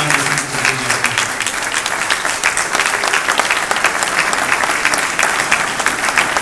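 Audience applauding: steady, dense clapping from a seated crowd in a hall.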